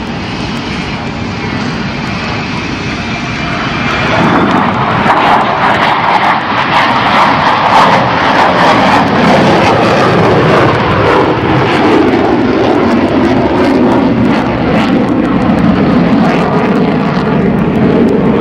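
Fighter jet's engine noise as it flies past overhead, a steady rush that swells sharply about four seconds in and stays loud.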